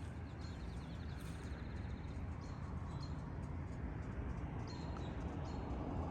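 Small birds chirping and trilling over a steady low outdoor rumble.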